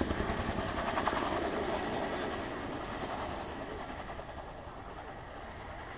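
Chinook tandem-rotor helicopter flying past, its rotors beating rhythmically over the engine noise; the sound fades through the second half as it moves away.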